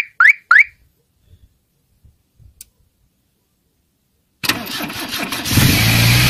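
A car alarm siren gives three quick rising chirps as the remote autostart is triggered. About four seconds later, the VW Golf 2 Jetta's carburetted petrol engine, fitted with a Solex 53-20 carburettor, cranks briefly on a cold start with the choke on, catches and settles into a steady idle.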